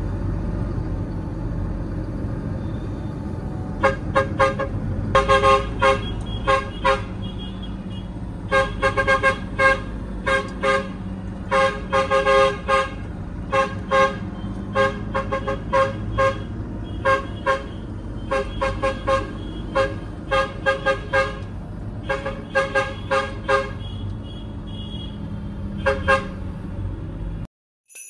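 A vehicle horn tooted over and over in quick short blasts, in bunches, starting about four seconds in, over the steady low running of a tractor engine heard from inside the cab. The sound cuts off abruptly near the end.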